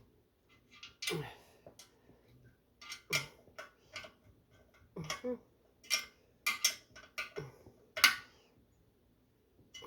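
Irregular sharp metallic clicks and clinks of a wrench on the nuts and bolts of a metal fruit-press stand, as the fastenings are checked for tightness.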